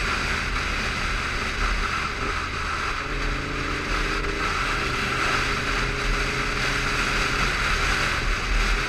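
Honda VTR1000F Super Hawk's V-twin engine running at cruising speed, heard from the moving bike with steady wind and road noise over the microphone. The engine note eases briefly about two seconds in and picks up again about a second later.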